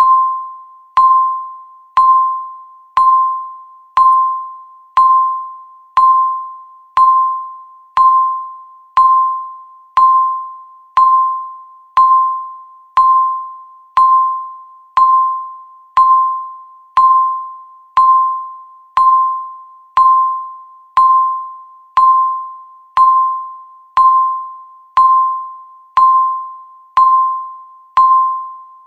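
Countdown timer beeping once a second: a single mid-pitched electronic beep with a sharp start that fades away before the next, repeating evenly as each second ticks off.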